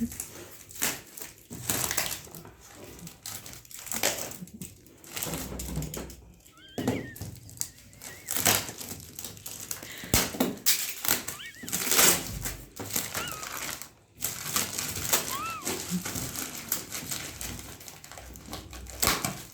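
Irregular rustling, clicks and knocks of packaging and parts being handled while a mixer grinder is unboxed, with a few brief squeaks.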